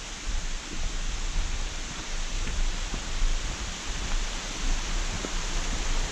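Steady rushing outdoor noise with a low rumble, picked up by a camera's microphone on the move, with a few faint knocks.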